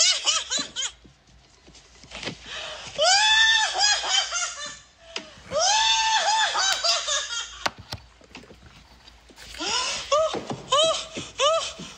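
A man's high-pitched falsetto cackling, a Joker-style maniacal laugh. It opens with short 'ha-ha' bursts, has two long drawn-out shrieking cries in the middle, and ends in a rapid, rhythmic cackle of about three bursts a second.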